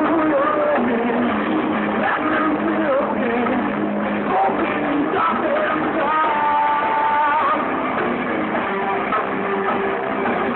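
Live rock band playing: electric guitars and drums with a singer's vocals, a long note held about six seconds in.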